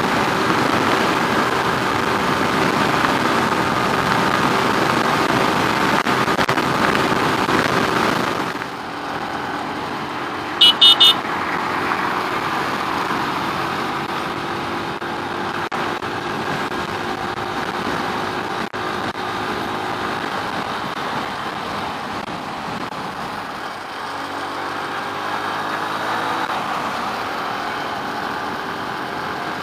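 Keeway RKS 100 motorcycle's single-cylinder engine running at highway cruising speed. About eight seconds in the engine note drops, and a couple of seconds later a horn gives three quick beeps. The engine pitch then climbs again near the end as the bike accelerates.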